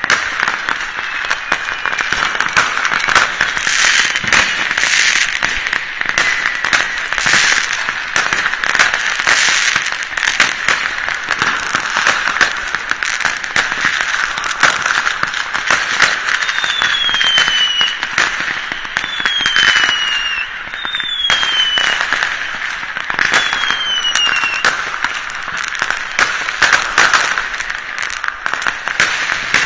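Fireworks and firecrackers going off across a city: a dense, continuous crackle of pops and bangs near and far. Partway through come four falling whistles, each about a second long, from whistling fireworks.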